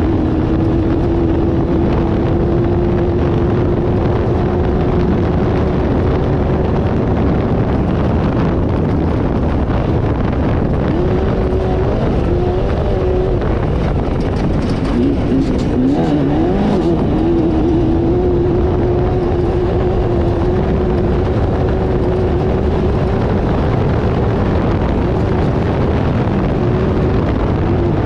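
Off-road race car engine running hard at a steady high pitch, with a constant rushing noise beneath it. About halfway through, the revs waver and dip briefly, then settle back to the same steady pitch.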